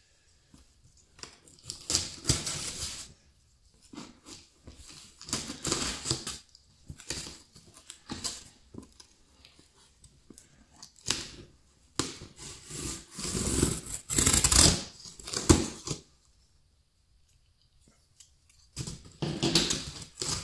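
Clear packing tape being cut with a small folding blade and peeled off a cardboard shipping box, giving irregular bursts of scraping and ripping, with the cardboard rustling as the box is handled. The sounds stop for a few seconds near the end, then resume.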